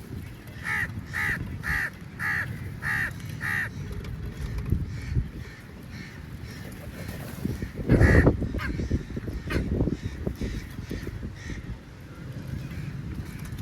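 A crow cawing six times in quick succession, about two calls a second, then fainter scattered caws. A loud low thump or rumble breaks in about eight seconds in, over a steady low background.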